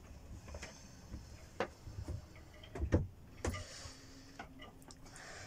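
Scattered light knocks and clicks at irregular times, the loudest about three seconds in: footsteps and handling noise of someone walking with a phone through a small yacht cabin. A faint steady hum comes in about four seconds in.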